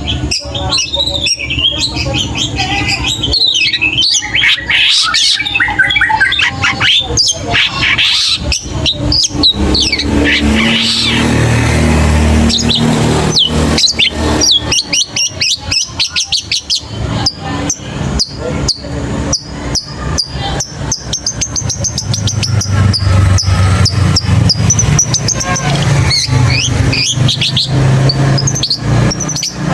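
Young long-tailed shrike (cendet) singing a rapid, varied song of clicks, chatters and short whistles, going on without a break.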